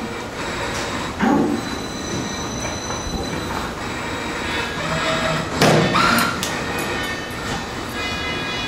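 MTF-40SR forming spring machine running, with steady high metallic whines, scraping squeals and clanks as the wire is formed; the loudest clatter comes about six seconds in.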